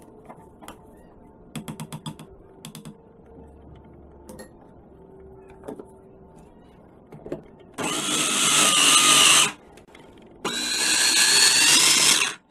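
Light clicks and knocks as the mini chopper's bowl and lid are handled, then a Moulinex electric mini chopper runs in two short pulses near the end, grinding roasted peanuts into a paste, its motor pitch wavering under the load.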